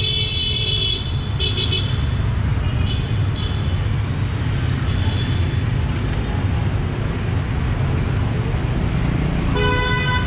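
Street traffic rumbling steadily, with a few short high-pitched horn toots in the first seconds and a lower, stronger horn toot near the end.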